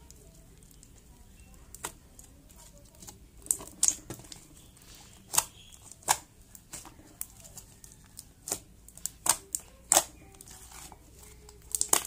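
Glossy slime being kneaded, folded and pressed by hand, giving irregular sharp pops and clicks. The pops start about two seconds in and come more often toward the end.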